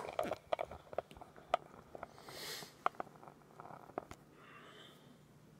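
Small plastic spoon clicking and tapping against a glass food container as a toddler spoons up cut fruit: irregular sharp clicks, the loudest at the very start, with a brief soft hiss about two seconds in.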